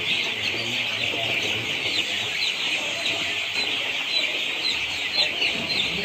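A large flock of ten-day-old broiler chicks peeping without pause, a dense chorus of many short, high, overlapping chirps.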